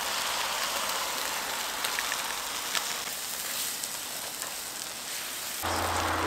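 Chicken pieces sizzling in a small frying pan over a canister gas stove while they are stirred with a spatula, with faint scattered crackles. A low steady hum comes in near the end.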